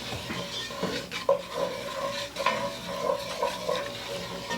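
Raw roux of flour and peanut oil being stirred in a pot, with quick, rhythmic strokes about three a second. The pot has only just begun to heat, so the roux is not yet bubbling.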